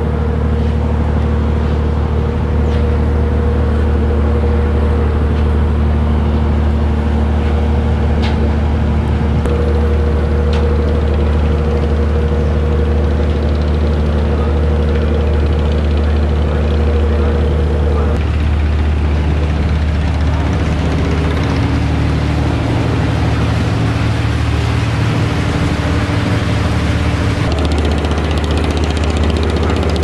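A large engine running with a steady low drone, its tone shifting a little past halfway and again near the end.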